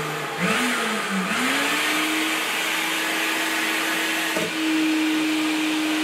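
Canister wet-and-dry vacuum cleaner running, drawing air through the pipe of a marshmallow cannon. Its motor hum climbs in pitch over the first two seconds as it spins up, then holds a steady whine over the rush of air. There is a brief knock about four seconds in, and the hum is a little louder after it.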